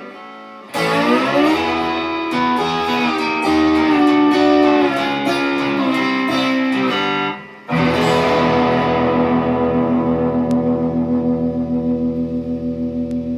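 Electric guitar (Squier Stratocaster) played with a slide in a blues outro: a lick with gliding notes starting about a second in, then a final chord struck about eight seconds in and left ringing. Its loudness pulses steadily as it slowly fades.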